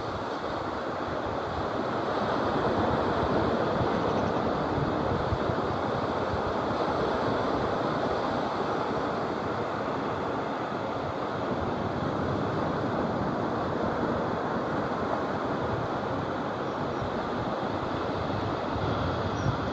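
Steady rush of sea surf breaking along a sandy beach, with wind buffeting the phone's microphone.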